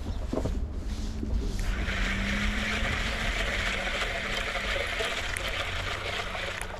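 Baitcasting reel being cranked in, a steady gear whir that starts about a second and a half in and stops abruptly near the end. Low wind rumble on the microphone underneath.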